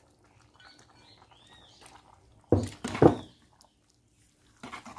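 Metal ladle stirring greens into an aluminium pot of dhal and rice, scraping loudly twice about two and a half seconds in and once more near the end, with faint bird chirps in the background.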